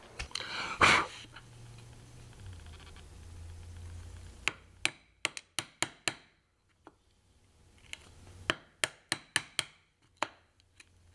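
Narrow 5 mm chisel being struck with a mallet to chop dovetail waste in avodire. There are two runs of quick, sharp knocks: about six, just under halfway through, then about seven more near the end.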